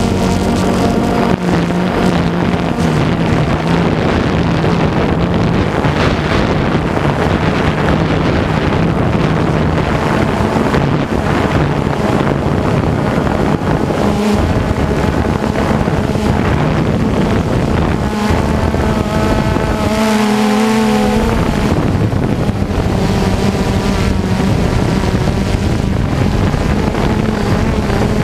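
DJI Phantom 2 Vision+ quadcopter's motors and propellers buzzing steadily from close by, their pitch wavering as the motor speeds shift, with a brief pitch wobble about two-thirds of the way through, over wind noise on the microphone.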